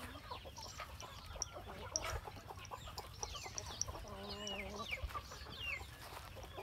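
Farmyard chickens clucking, with high falling peeps repeating every second or so and a hen's drawn-out call about four seconds in, over scattered short taps and scratches.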